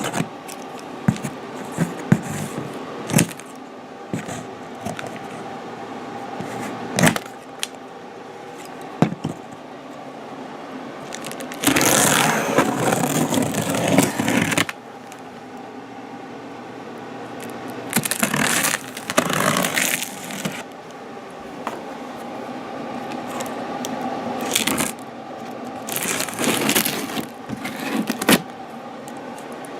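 The cardboard shipping box of a table saw being opened and its packing handled: scattered clicks and knocks, then several stretches of scraping and tearing, the longest about halfway through. A steady hum runs underneath.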